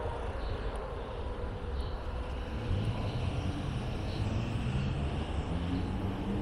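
Steady street traffic rumble, with a vehicle engine growing louder in the second half.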